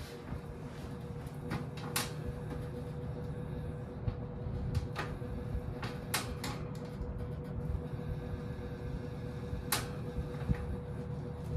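1968 GE W-22 box fan running on its low speed: a steady motor hum and drone with one constant tone, broken by irregular sharp clicks every few seconds. Something on the fan is resonating, and the owner cannot tell what.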